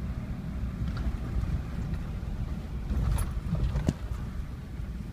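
Jeep driving on a dirt road, heard from inside the cab as a steady low engine and tyre rumble. A few sharp knocks and rattles come about three to four seconds in.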